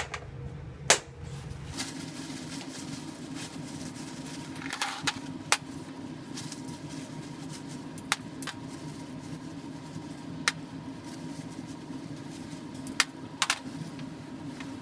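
Steel bolts being picked up and set down on a hard benchtop: scattered single sharp clicks and knocks of metal on the surface, about ten in all. Under them, a steady low machine hum starts about two seconds in.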